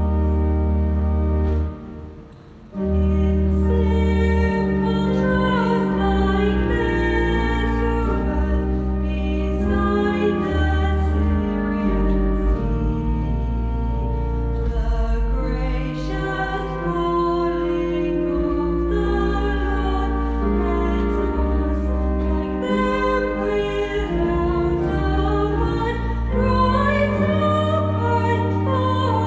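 A hymn sung by a choir with a pipe organ holding deep sustained bass notes. There is a brief break between phrases about two seconds in.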